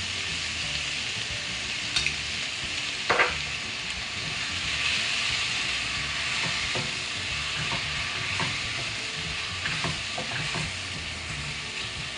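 Sliced onions sizzling as they fry in hot oil in a pan, stirred with a wooden spoon that scrapes across the pan bottom, with a couple of short knocks of the spoon about two and three seconds in.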